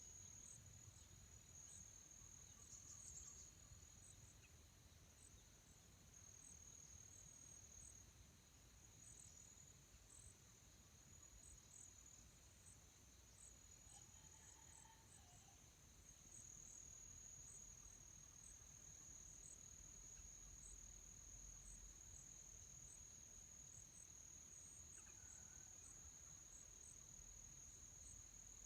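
Faint, steady, high-pitched insect chorus, with short pulses repeating roughly once a second over the continuous buzz.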